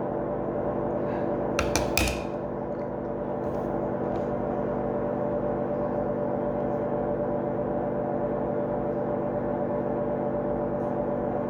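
A steady droning hum made of several held tones, with a couple of brief clicks about two seconds in.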